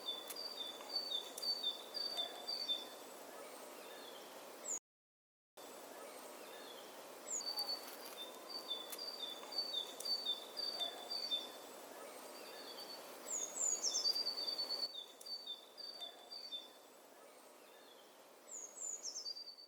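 Small songbirds singing: runs of quick, high, repeated chirps, with a few notes sliding downward near the middle and near the end, over a steady haze of wind noise. The sound drops out briefly about five seconds in.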